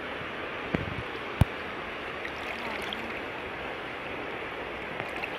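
Steady rush and slosh of shallow water as people wade through it with a hand net, with two sharp knocks about a second in, the second one louder.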